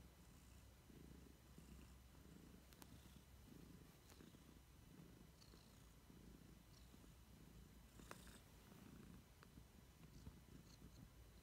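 Tabby cat purring faintly, the purr swelling and fading in repeated waves, with a few faint clicks.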